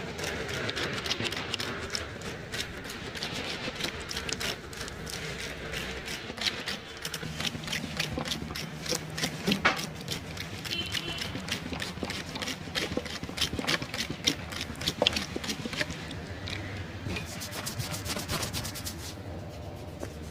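A barber's hands rubbing and patting during a massage: a fast, irregular run of scratchy rubs and light slaps on skin and hair.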